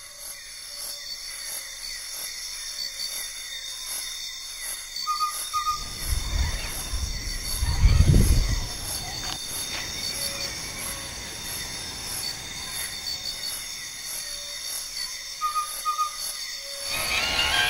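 Tamiya CR-01 Land Cruiser RC crawler driving over rough ground, its electric motor and gearbox running, with a low rumble that swells to its loudest as the truck passes close by about eight seconds in. Insects chirp steadily behind it.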